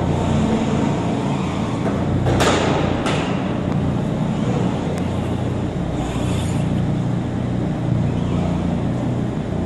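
Lamborghini Huracán's V10 engine running steadily at low revs as the car creeps along, with two short sharp bursts about two and a half and three seconds in.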